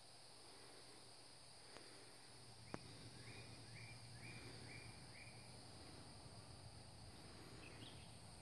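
Faint, steady chorus of insects trilling, with a bird calling five short notes in a row, about two a second, around the middle.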